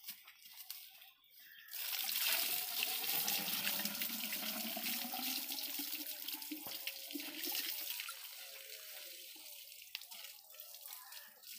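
Water poured from a plastic bucket into the centrifugal pump of a diesel irrigation pump set, priming the pump before the engine is started. The pouring starts about two seconds in, runs steadily for about six seconds, then trails off.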